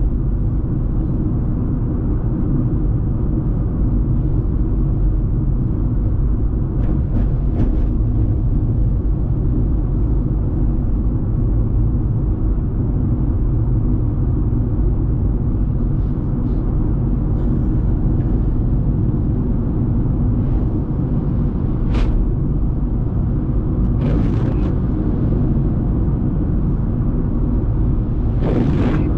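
Steady low road and engine rumble heard inside the cabin of a moving car, with a single sharp click about three quarters of the way through and a few brief hissy swishes.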